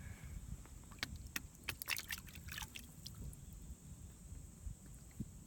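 Faint small clicks and rustles of handling as muck and plant debris in a quahog rake are picked through over the side of a boat, over a low steady rumble of wind on the microphone. The clicks cluster in the first three seconds, then it goes quieter.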